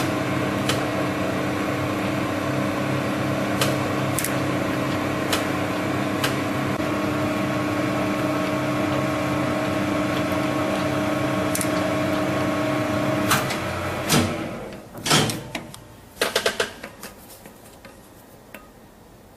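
Lathe running with a steady motor hum and a few sharp clicks, then shutting down about 13 seconds in and winding down. A few sharp knocks follow before it goes quiet.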